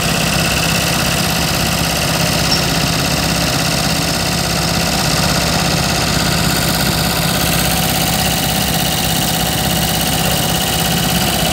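Heavy diesel engine of a crawler pile-driving rig running steadily at idle, with a constant low hum and no hammer blows.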